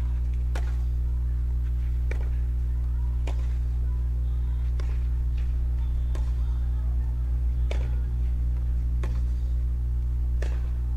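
Tennis ball struck by rackets in a baseline rally on a clay court: a string of sharp pops about one to one and a half seconds apart, over a steady low hum.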